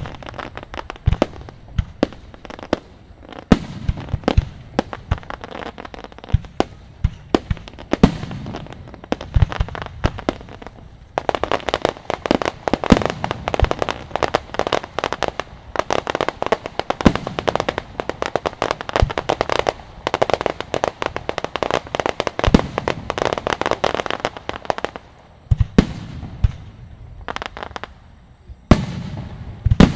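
Aerial fireworks display: a string of separate shell bursts and booms, then from about a third of the way in a dense barrage of many rapid pops lasting some fourteen seconds, then separate booms again, with a loud bang near the end.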